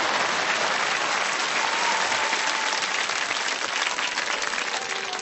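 Studio audience applauding: a dense patter of many hands clapping that slowly fades away near the end.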